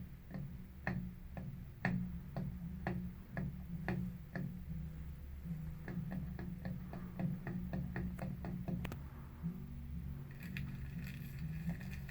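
Sharp ticking clicks, about two a second, turning quicker and uneven through the middle, over a steady low hum; a higher, steadier sound joins near the end.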